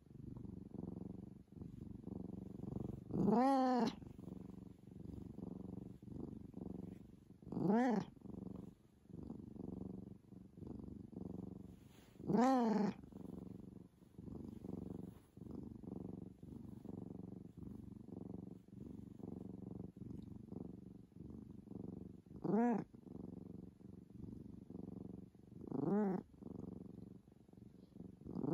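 Domestic tabby cat purring steadily while giving a handful of short, talking-like meows several seconds apart, each call rising and falling in pitch.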